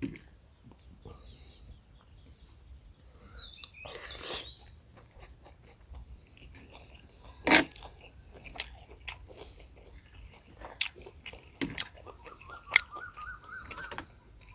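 A person eating: chewing with scattered light clicks and knocks, over a steady high-pitched insect drone. There is a short louder rush of noise about four seconds in.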